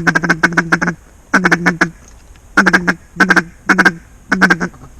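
Mallard duck call blown close by, giving loud hen-style quacks in about six quick runs, the first and longest with five or six quacks. This is the calling used to draw passing mallards in.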